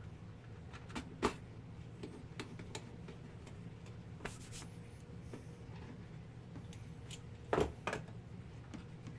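Small clicks and taps of a screwdriver and laptop parts being handled, with two louder knocks, one about a second in and one near the end, over a steady low hum.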